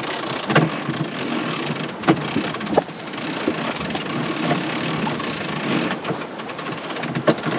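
Steady rush of wind and water along a sailboat's hull under sail, with a few sharp knocks and clicks scattered through it.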